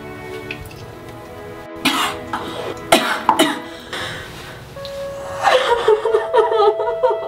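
A young woman gagging and retching with harsh coughs about two to three seconds in, then again with a longer wavering retch near the end: a staged self-induced vomit. Soft string music plays under it.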